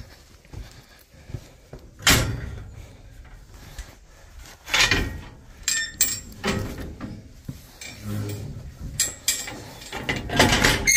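Steel barn gates and a cattle head gate being handled, giving a string of sharp metal knocks and clanks a second or two apart.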